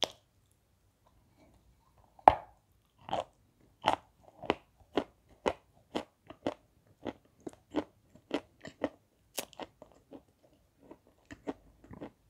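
Close-up crunching of a chunk of white 'beze' chalk coated in wet red clay, bitten and chewed. It starts about two seconds in with one loud bite, then goes on as crisp crunches about twice a second.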